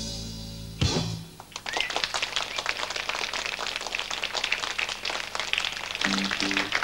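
A live rock band's held closing chord, ended by one loud final hit about a second in, followed by an audience applauding. Near the end a couple of short low instrument notes sound over the clapping.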